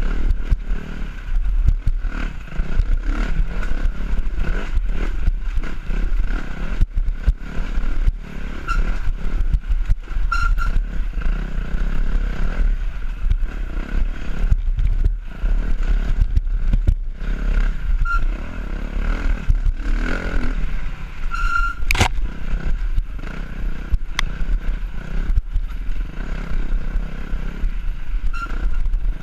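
Dirt bike engine running as the bike is ridden over rough ground, with constant rattling, scraping and knocks from the bike bouncing over the trail. One especially sharp crack comes about 22 seconds in.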